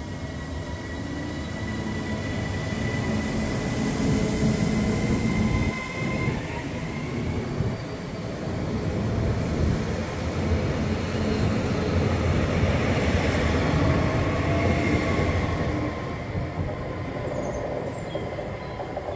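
Passenger train moving through the station: a low rumble of wheels on rails that grows louder over the first few seconds and eases off near the end. A steady high whine runs with it and stops about six seconds in.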